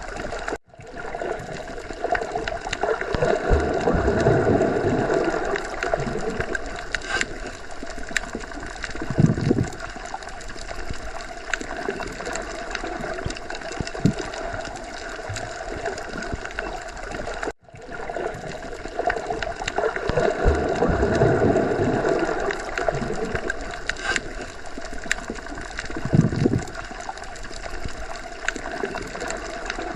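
Underwater sea ambience: a muffled, steady wash of water with slow low swells and scattered bubbling pops. The sound is a loop that restarts about every 17 seconds, with a brief dropout at each restart, once near the start and again about halfway through.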